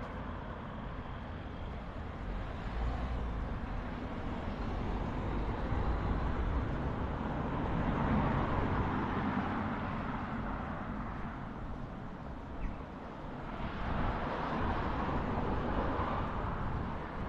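Town street ambience with road traffic: cars passing, swelling about halfway through and again near the end over a steady low rumble.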